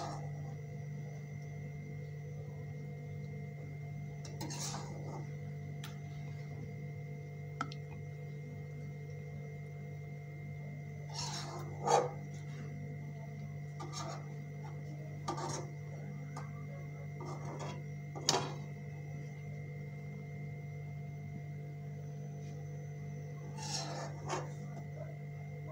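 A steady low hum with faint steady tones underneath, broken by about eight brief scraping and rubbing sounds. The loudest comes about twelve seconds in, with a cluster near the end.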